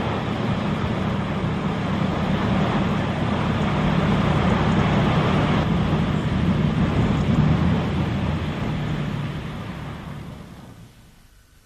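Steady street-traffic noise, fading out over the last few seconds.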